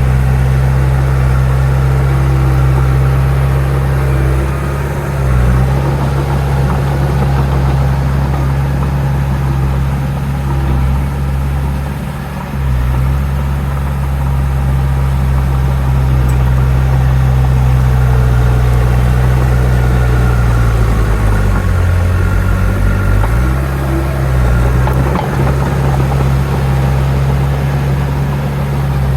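Heavy diesel engine of earthmoving machinery running steadily at work, its low note dipping and changing pitch briefly a few times as the load changes.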